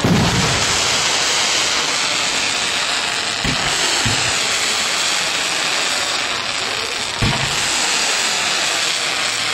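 Fireworks going off: a steady hiss of burning pyrotechnics, broken by four dull thumps of shells, one right at the start, two close together about three and a half seconds in, and one past seven seconds.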